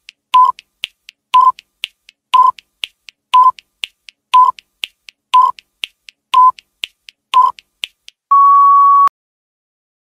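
Countdown timer sound effect: a short beep once a second with faint ticks between, ending about eight seconds in with one longer, slightly higher beep as the time runs out.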